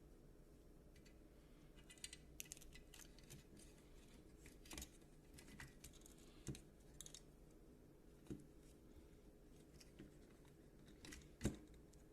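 Faint, scattered light clicks and taps over a low steady hum, with the loudest knock about eleven seconds in.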